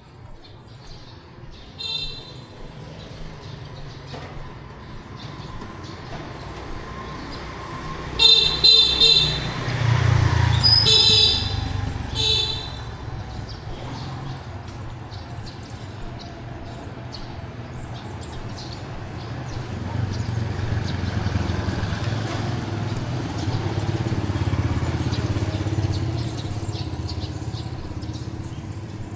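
Street traffic: vehicle horns toot several short times, loudest about eight to twelve seconds in, while engines pass with a low rumble that swells twice.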